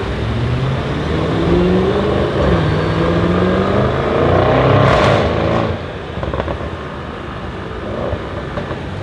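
Audi RS6 C7's twin-turbo 4.0-litre V8 through a non-resonated Milltek exhaust, accelerating hard: the engine note climbs steadily in pitch for about five seconds, peaks, then drops away sharply.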